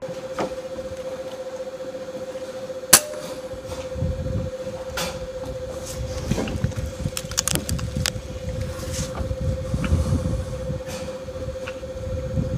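A single sharp shot from an FX Dreamline Pup .22 PCP air rifle about three seconds in. It is followed by a few lighter clicks over a steady humming tone and an uneven low rumble.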